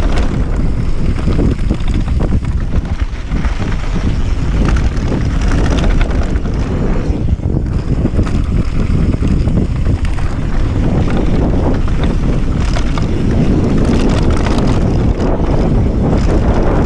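Wind buffeting the microphone of a camera on a downhill mountain bike descending a gravel trail at speed, with a steady rush of knobby tyres rolling over dirt and gravel and the bike chattering over small bumps.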